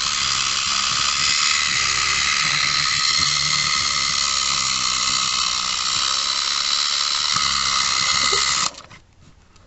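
Clockwork spring motor of a miniature wind-up toy computer running, a steady high whirring hiss as the wound spring unwinds. It cuts off suddenly near the end.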